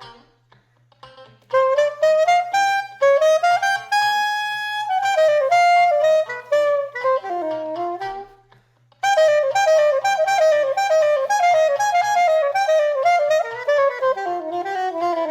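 Saxophone improvising a jazz-funk line in D minor, morphing at times into A7 altered-scale ideas that give an outside sound. Short phrases, a long held high note about four seconds in, a pause about halfway, then fast runs and a phrase that falls in pitch near the end.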